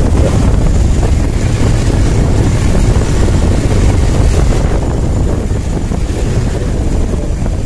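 Wind buffeting the microphone of a motorcycle under way, a dense low rumble over the engine and road noise; it eases slightly in the last couple of seconds.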